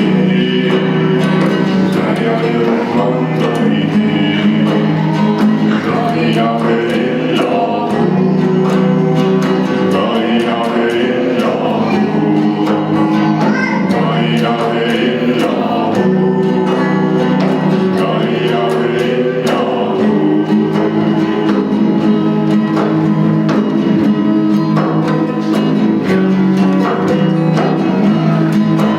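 Music: singing with a plucked string instrument over a steady low drone.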